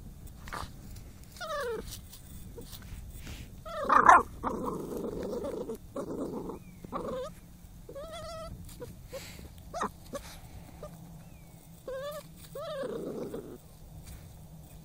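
Jack Russell terrier puppy whining in short, wavering cries while nosing and digging at a mole hole, with one loud yelp about four seconds in and scratchy scuffling noise between the cries.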